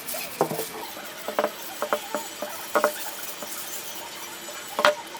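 Light knocks and clicks of kitchen utensils during food preparation, about a dozen at uneven spacing, some with a short ring, the loudest near the end.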